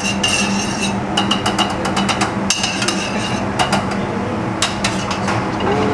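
A steel ladle clinks, taps and scrapes against a nonstick frying pan as butter is stirred in oil, in irregular clusters of sharp clicks over a steady low hum.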